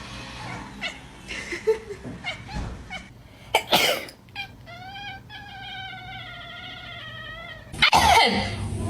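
A cat's long, drawn-out meow, about three seconds, wavering a little in pitch. It follows a short, sharp burst of noise, and another loud burst comes near the end.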